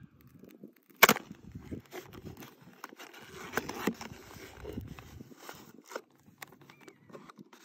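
A cardboard box of Kinder Surprise eggs being torn open and handled: one sharp snap of the card about a second in, then crinkling and scraping of cardboard and foil-wrapped eggs being lifted out.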